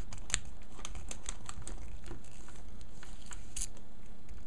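Small, irregular clicks and ticks of a mini Phillips screwdriver working a tiny screw out of a plastic action figure's chest, about three or four a second. There is one louder click about three and a half seconds in.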